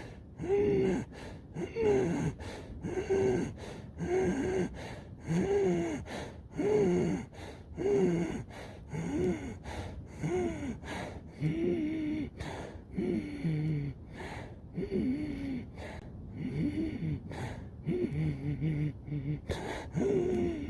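A man gasping hard for breath, a loud voiced heave about once a second, out of breath after running.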